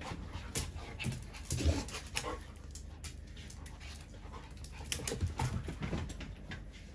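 Two dogs play-wrestling, panting and scuffling, with many short irregular clicks and knocks and a few brief low sounds between them.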